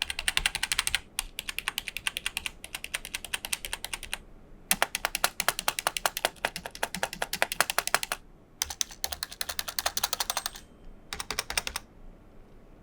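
Logitech G213 Prodigy membrane keyboard being typed on fast, in about six runs of keystrokes with short pauses between. The keystrokes sound sharp, and the stabilizers rattle a lot.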